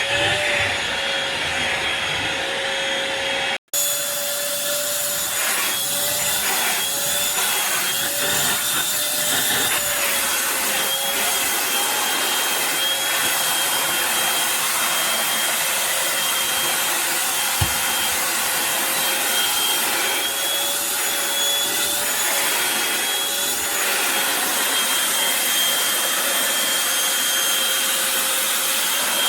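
Eureka corded stick vacuum running steadily, its motor whine wavering slightly in pitch as it is pushed over the floor. The sound cuts out abruptly for an instant about four seconds in.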